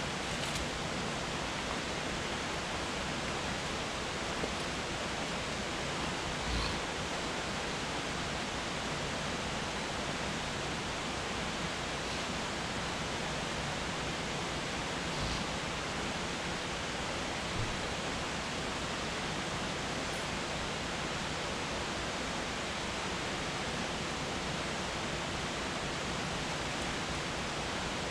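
Steady rush of a rocky mountain creek running over stones, with a couple of faint knocks.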